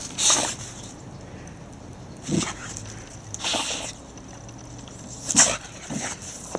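White boxer dog sniffing and blowing with its nose in the snow: several short breathy bursts at irregular intervals.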